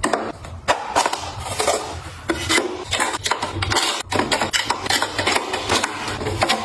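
Household items and containers being handled and set down by hand: a run of irregular clicks and knocks over rubbing and scraping.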